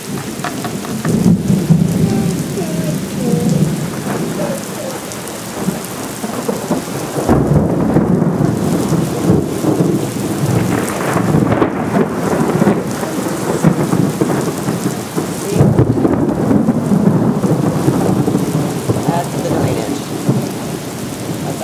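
Heavy downpour: rain pouring steadily onto pavement and yard, with a low rumble that suddenly swells louder twice, about seven and fifteen seconds in.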